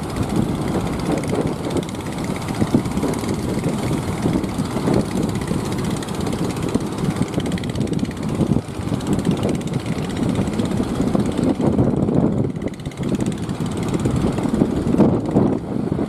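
Heavy surf breaking and washing up the beach, a loud, steady rumbling roar with wind on the microphone.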